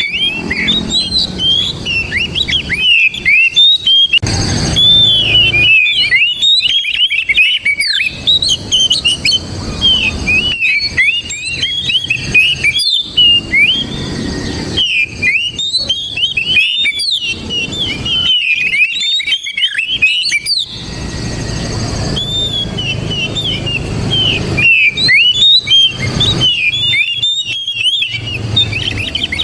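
Oriental magpie-robin singing fast, varied whistled phrases of quick rising and falling notes, broken by short pauses.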